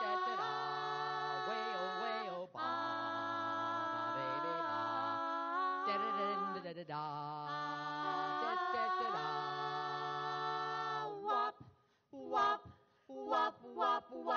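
Three women singing a cappella in close harmony into handheld microphones, holding long chords with vibrato. About eleven seconds in, the held chords stop and give way to short, clipped sung syllables.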